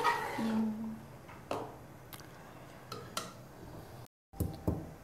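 A metal spoon knocking and scraping now and then against a metal pot of creamy chicken curry as it is stirred. After an abrupt cut near the end, a wooden pestle strikes peppercorns in a mortar a few times.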